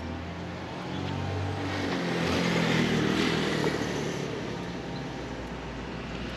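A motor vehicle passing by on the road: its engine and tyre noise swell to a peak about three seconds in, then fade away.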